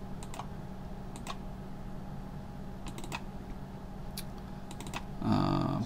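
Scattered clicks of a computer mouse, some in quick pairs like double-clicks, over a steady low electrical hum. A brief bit of the man's voice near the end.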